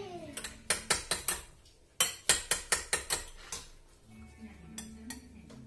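Kitchen utensil knocking and clinking against a dish: a quick run of about a dozen sharp strikes over the first three and a half seconds, then a few fainter ones.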